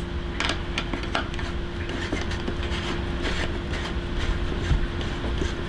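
Metal bicycle tools and parts clicking and clinking as they are handled, in irregular taps, over a steady hum.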